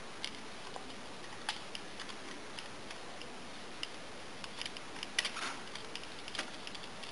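Faint, irregular light clicks and taps of small machine screws and a plastic model-car chassis being handled as the screws are fitted into the underside, with a busier run of clicks about five seconds in.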